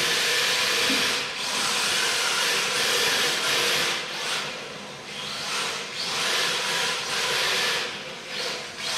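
Electric RC drift car on an MST chassis sliding across a tiled floor: its hard drift tyres hiss and scrub on the tiles while the motor whines underneath. The scrubbing swells and fades with each slide through the turns.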